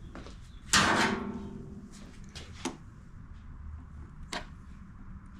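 Workbench handling sounds: a sharp knock about a second in with a brief ring, then a few lighter clicks, as tools and blower parts are set down and moved during fuel-line work.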